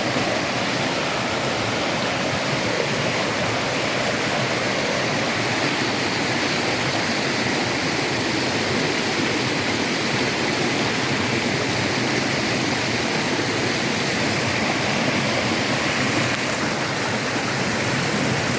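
Water of a mountain valley stream rushing steadily over rocks, a constant even noise.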